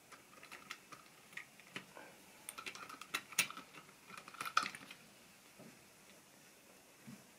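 Small plastic model railway wagons handled on the track: a run of light clicks and clatters, the loudest about three and a half and four and a half seconds in.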